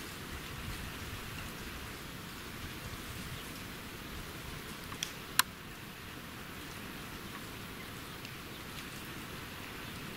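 Steady rushing background noise, with two short sharp clicks a little past the middle; the second click is the louder.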